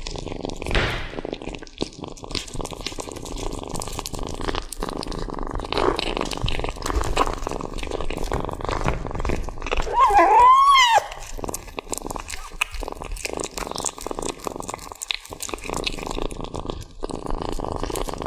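Kitten chewing and tearing at a raw bone-in steak: a steady run of small, wet, crunchy clicks from its teeth on meat and bone. About ten seconds in, it gives one mew that rises and falls over about a second, louder than the chewing.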